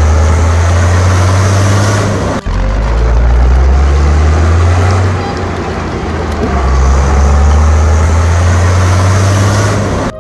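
Motor vehicle engine running with a heavy, steady low rumble, cut off briefly about two and a half seconds in and easing off for a moment around the middle.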